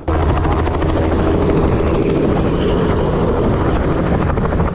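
Helicopter running close by on the helipad, a loud steady rotor noise with a rapid, even blade chop.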